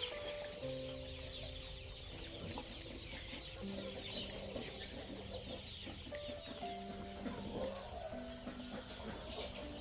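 Chickens clucking and scratching about, over soft background music of slow held notes.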